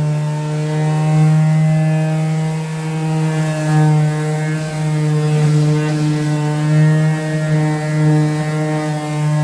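Electric sander's motor running steadily with an even hum, its level swelling and dipping slightly every second or so.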